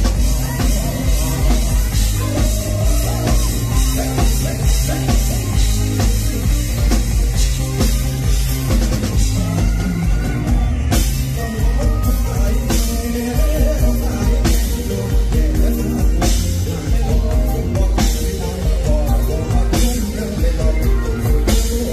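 Live Thai luk thung/Isan band playing through a PA, with drum kit keeping a steady beat and bass, while a male vocalist sings into a microphone.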